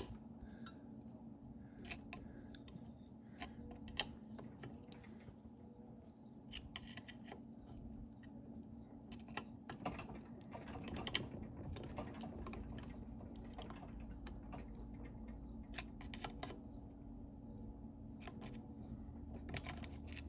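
Metal hand tools clicking, tapping and scraping against an NV3500 transmission's aluminium case while working a stuck detent free, in scattered light clicks over a faint steady hum.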